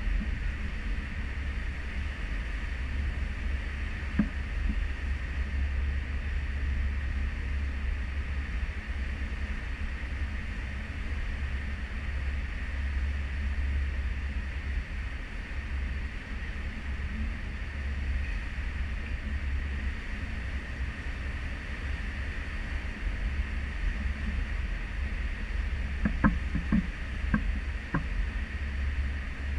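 Steady rushing of a cruise ship's wake and wind at the stern, with a low rumble that rises and falls. A few short knocks come near the end.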